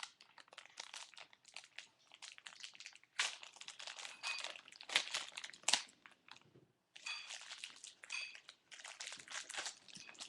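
Plastic wrapping crinkling and crackling in irregular handfuls as a Beyblade ripcord is unwrapped by hand, with a brief pause about two-thirds of the way through.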